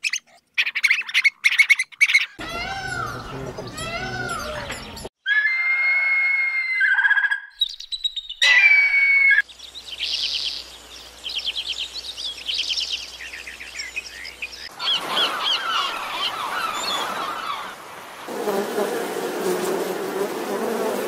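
A string of short animal sound clips, each cut off sharply: quick high chirps and squeaks, arching calls, whistled notes, rising calls and fast trills. In the last few seconds comes a low, even insect wing buzz.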